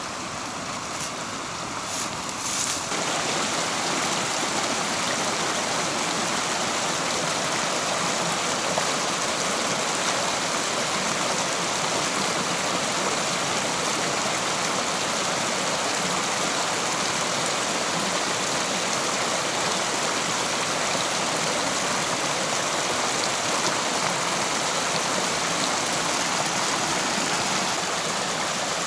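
Running water from a mountain stream or spring rushing steadily, louder and even from about three seconds in, with a few faint knocks before that.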